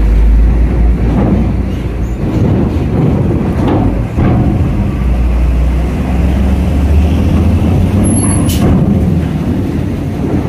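Heavy diesel trucks driving off a ferry's steel loading ramp, engines rumbling under load as they pull up onto the deck grating, with a few clanks as the wheels cross the ramp plates, the sharpest one near the end.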